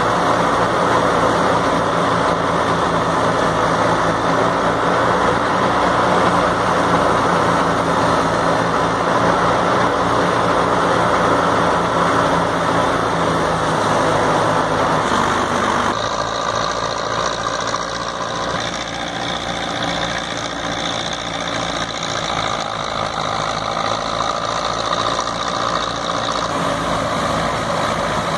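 Belarus 510 tractor's diesel engine running steadily under load while driving a wheat thresher, with the thresher's drum and belt drive whirring as straw is fed in. A little past halfway the sound shifts, the low engine hum dropping back and the thresher's higher rushing noise coming forward.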